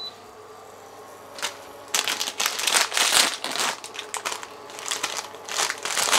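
Plastic instant-noodle packet crinkling and rustling as it is handled and opened, in crackly bursts that start about two seconds in.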